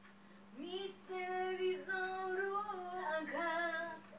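A woman singing long, held notes that waver in pitch, over a steady low hum.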